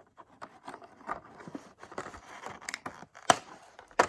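Scattered light clicks and snips as a plastic action figure is worked free of its packaging, with one sharper click about three seconds in.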